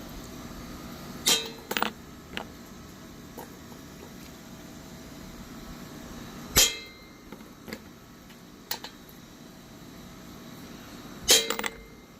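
Hammer striking a nut used as a drift to drive a lock washer onto a dolly wheel's axle: several sharp metal-on-metal knocks at uneven intervals with a short ring, the loudest about a second in, halfway through and near the end.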